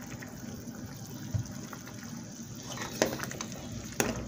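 Thick guajillo chile sauce bubbling at a boil in a metal pot, with the spatula stirring it and two sharp knocks against the pot near the end.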